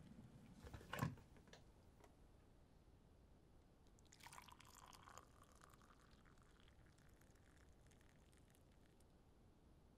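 Faint kitchen sounds from a kettle: the low rumble of the water at the boil dies away and a sharp click comes about a second in. About four seconds in there is a brief trickle of hot water being poured into a mug; otherwise near silence.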